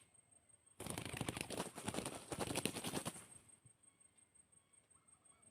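A dove's wings flapping in a rapid flurry for about two seconds.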